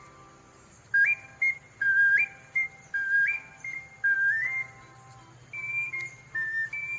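Ocarina playing a birdsong-like figure: a low note leaping up to a high one, three times about a second apart, then a run of falling notes.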